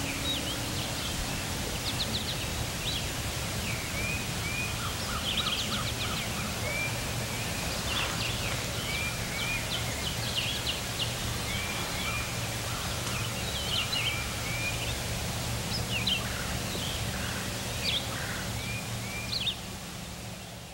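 Several songbirds chirping and trilling in spring woodland, with one bird repeating a short arched note again and again, over a steady low rumble. The sound fades out near the end.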